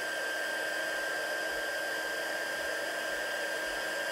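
Embossing heat tool blowing steadily, a rush of hot air with a steady high-pitched whine, as it melts clear embossing powder on a stamped card.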